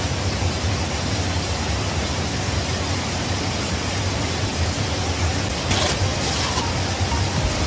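Steady rushing of a river flowing, an even hiss, with a short rustle about six seconds in.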